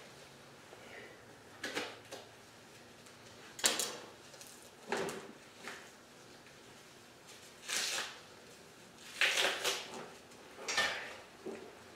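Deer hide being cut and worked off a hanging carcass by hand: short, irregular bursts of scraping and rustling, about seven of them, the loudest about four seconds in and a cluster near the end.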